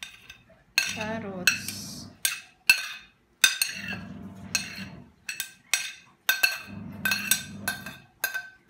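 Metal spoon scraping and tapping against a plate and the rim of a glass bowl as diced carrots and onions are pushed off into it. The result is a run of sharp, ringing clinks, about one or two a second.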